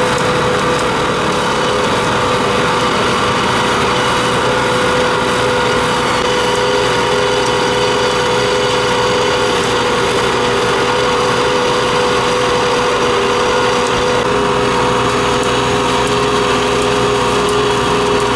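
Diesel engine of road-paving machinery running steadily, a constant hum with a held engine note that shifts slightly about fourteen seconds in.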